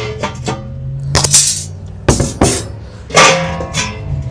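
Background music runs under a few sharp metallic clanks and rattles of a stainless steel charcoal basket being handled and set into a ceramic kamado grill, the loudest about three seconds in.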